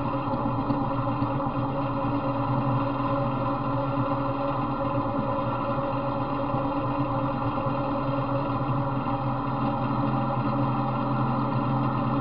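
Off-road riding mower's small engine idling steadily at an even pitch. The motor has a knock that the owner is trying to quiet with straight 40-weight oil and STP oil treatment.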